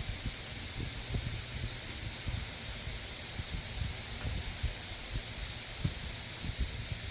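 Steady high-pitched hiss with scattered faint low knocks.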